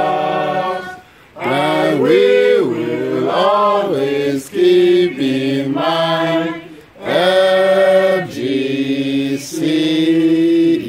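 A group of men and women singing a school anthem together in long held notes, with two short pauses for breath.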